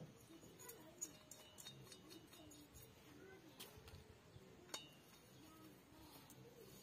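Near silence broken by a few faint metal clicks and clinks as a T-handle socket wrench is set on the cylinder bolts of a chainsaw's new cylinder. The sharpest click comes a little under five seconds in.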